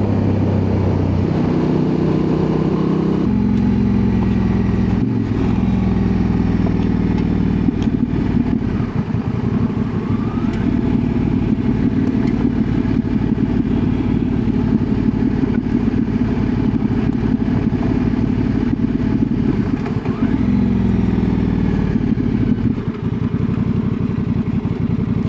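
Honda Transalp 750's parallel-twin engine pulling as the motorcycle is ridden, its pitch climbing and stepping at gear changes in the first few seconds, then holding steady, and dropping as it slows about twenty seconds in.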